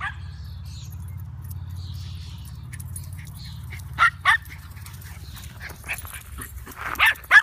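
Small dogs barking in short, sharp yaps while chasing each other in play: one bark at the start, two quick ones about four seconds in and two more near the end, over a steady low rumble.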